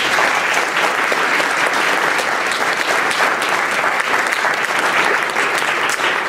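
Audience applauding, a loud, steady sustained clapping.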